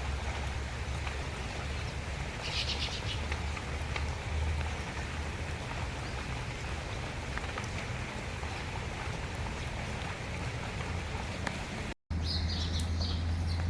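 Small birds chirping: a quick run of high chirps about two and a half seconds in, then several short chirps repeated near the end, over a steady hiss and low rumble.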